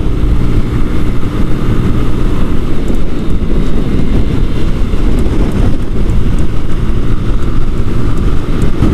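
Heavy wind buffeting on the microphone of a 125cc motorcycle riding at speed, with the small engine running hard underneath.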